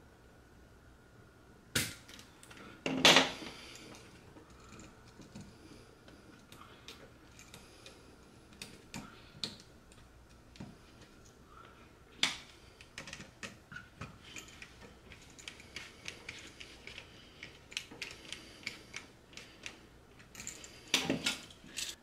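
Irregular small clicks and taps of hand tools, wires and a plastic electrical receptacle being handled while wiring an outlet, with louder knocks about two and three seconds in and a run of quicker light clicks in the second half.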